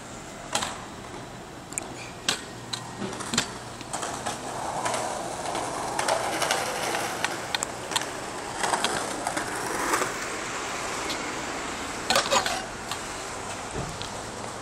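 Stunt scooter with a Phoenix deck rolling on a concrete sidewalk: a rolling hiss from the small wheels, louder in the middle, broken by scattered sharp clacks of the deck and wheels hitting the pavement, with a loud burst of clacks near the end.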